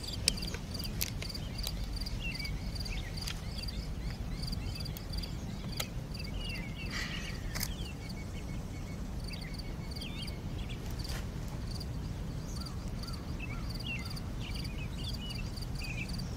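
Outdoor park ambience: small birds chirping on and off over an insect's evenly pulsing high call and a low hum of background noise. Several sharp single clicks at uneven intervals come from a DSLR camera's shutter.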